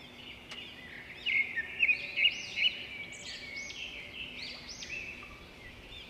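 A flock of budgerigars chirping and chattering, with a run of louder, sharper calls between about one and three seconds in.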